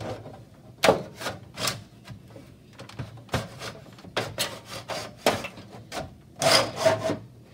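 A VCR's top cover being worked back onto its chassis: an irregular string of clunks, knocks and scrapes as the casing is shifted and pressed into place, with a longer scrape about six and a half seconds in. The cover is a tight fit.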